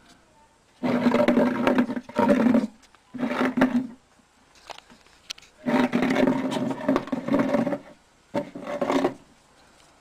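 Upturned flowerpot scraping and grinding over a rough concrete patio as a ferret underneath shoves it along, in five bursts of uneven length, the longest about two seconds.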